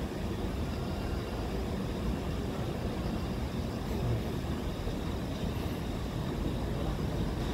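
Seoul Metro Line 1 rheostat-controlled electric train approaching slowly from a distance: a steady low rumble.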